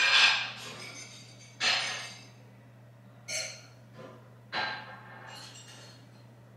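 A burst of TV-static hiss as a transition effect, then a low steady electrical hum. Over the hum come four short, sharp noises, each fading quickly with a little echo of the room.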